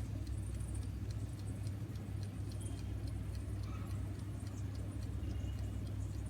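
Steady low hum of an electric oven running while it bakes, with faint light ticking over it.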